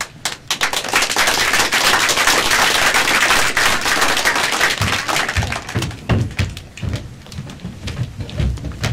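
Audience applauding, a dense patter of clapping that dies away after about five seconds, followed by scattered low thuds of feet on the stage floor.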